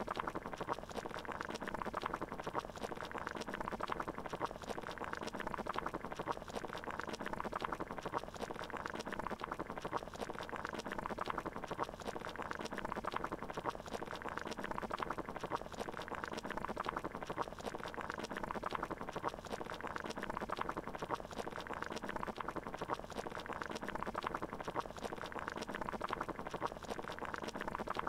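Water boiling, a steady, dense bubbling with many small pops.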